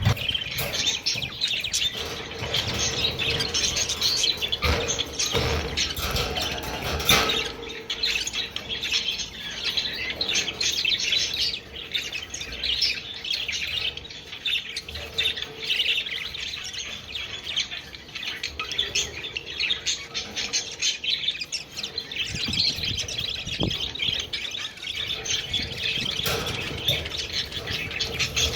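Budgerigars chattering: a continuous jumble of short warbling chirps and squawks, with a few sharp knocks here and there.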